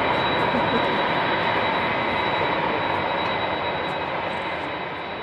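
Boeing 747-400 freighter's four jet engines at takeoff/climb power: a steady roar with a thin high whine on top, slowly growing quieter as the aircraft climbs away.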